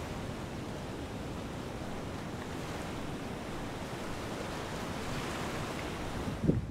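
Small waves washing steadily on a pebble beach.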